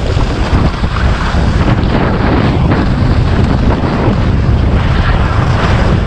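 Heavy wind noise buffeting the microphone of a camera carried by a skier going downhill, with skis scraping over packed snow.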